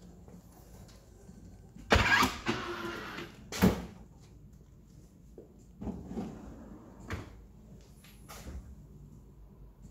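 Kitchen base-unit drawer with built-in waste bins sliding open on its runners, a rushing slide about two seconds in that ends in a sharp knock as it reaches its stop. Quieter slides and knocks follow.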